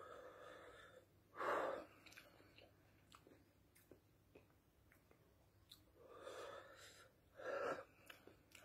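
A man breathing hard through his mouth while chewing superhot corn chips. Twice comes a longer breath followed by a short, sharper huff, with faint crunching clicks in between. This is the heavy breathing of someone coping with intense chilli burn.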